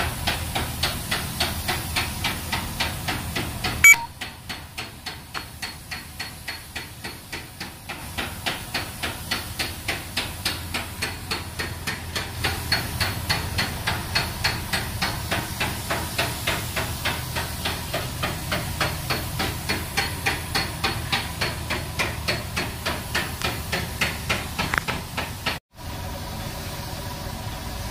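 Compressed-air paint spray gun hissing as paint is sprayed, over a regular ticking about twice a second, with one sharp knock about four seconds in.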